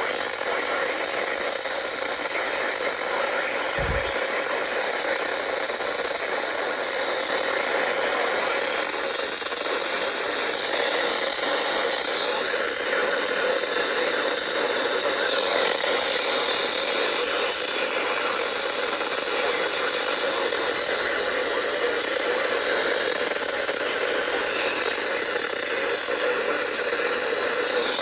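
Steady radio static hiss from a receiver with no programme on the channel, with a few faint wavering tones in the hiss.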